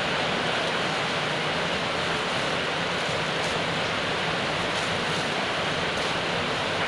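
Steady, even hiss, with a few faint crinkles of a plastic clothing bag being handled.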